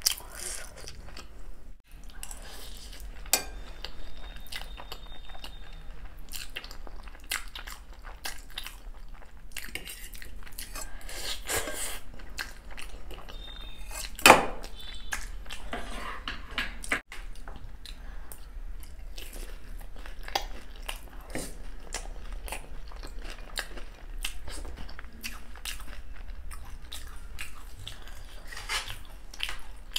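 Close-miked eating: a person chewing and slurping Maggi noodles, with spoons clinking against steel and ceramic bowls. One loud sharp click about fourteen seconds in.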